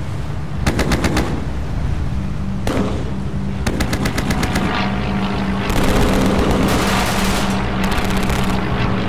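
Aircraft machine guns firing in several rapid bursts over the steady drone of a propeller fighter's engine, the last and longest burst starting about six seconds in.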